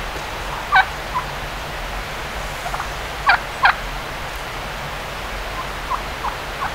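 Turkey calling: about nine short, sharp notes scattered irregularly, the loudest a close pair a little past three seconds in, over a steady background hiss.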